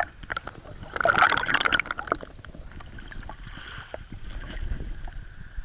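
Sea water washing and splashing at the surf edge, with a louder rush about a second in that settles into a lower, steady wash.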